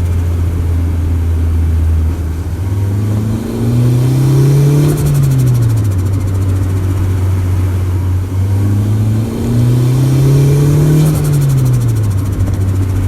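Turbocharged Honda D16Y4 1.6-litre four-cylinder idling, then revved up and let back down twice. Each time the throttle snaps shut, the turbo gives a fluttering chatter.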